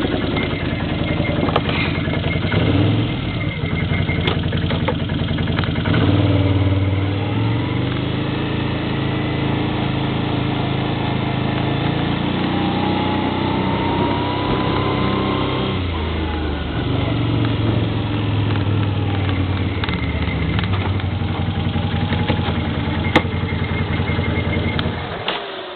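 ATV engine running, its revs stepping up and down repeatedly, then cutting off near the end.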